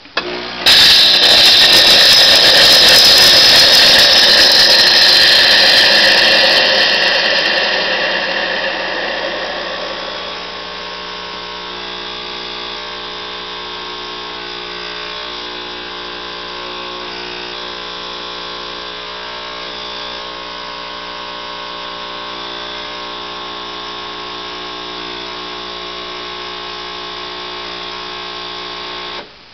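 De'Longhi coffee machine's pump running in its descaling cycle. It is loud for the first several seconds, then settles into a steady hum and cuts off suddenly near the end, where the descale cycle stalls and the machine stays stuck.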